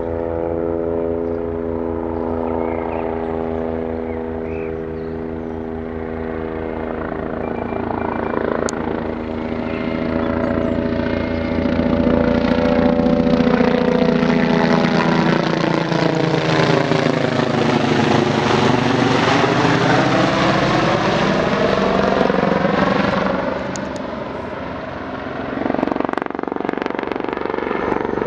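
BK 117 air-rescue helicopter flying low overhead, its rotor beating rapidly over the turbine whine. The sound grows louder as it comes overhead, with the tones sweeping and shifting as it passes, then eases briefly and swells again near the end as it banks away.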